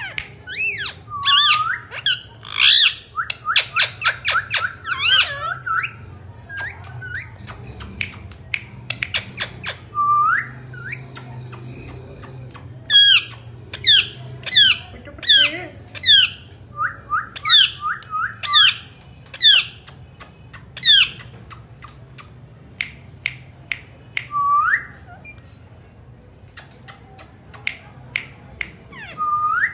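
Indian ringneck parakeet calling: runs of rapid, sharp, high-pitched squawks in bursts of several notes, with a few short rising whistled notes between them.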